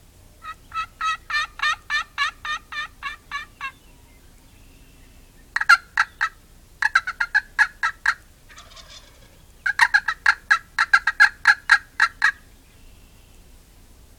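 Young male wild turkeys (jakes) gobbling: four loud, rattling gobbles, the first the longest at about three seconds, with the middle two close together.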